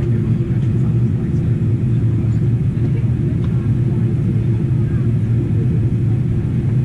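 Steady cabin noise inside a Boeing 777-300ER on approach: an even low rumble of engines and airflow that holds at a constant level.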